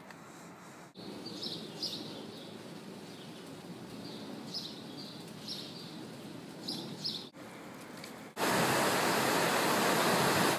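Outdoor ambience with small birds chirping several times over a steady background hiss, then a sudden cut, about eight seconds in, to the loud, steady rush of waves breaking on a beach.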